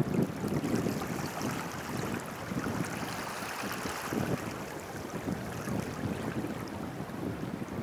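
Wind buffeting the microphone in uneven gusts, over a low wash of shallow water lapping across wet sand.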